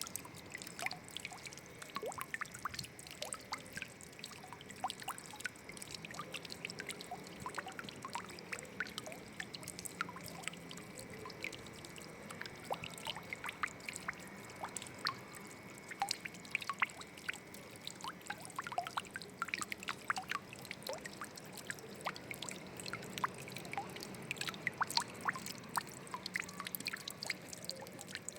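Running water trickling and pouring, with a steady rush dotted with many small irregular plinks and splashes of drops.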